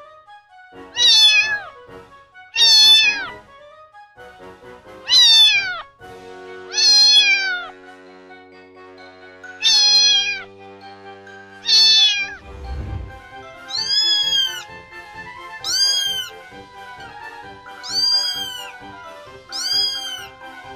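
Kittens meowing, about ten high-pitched meows a second or two apart: the first ones fall in pitch, the later ones rise and fall. Soft background music with a steady beat plays underneath.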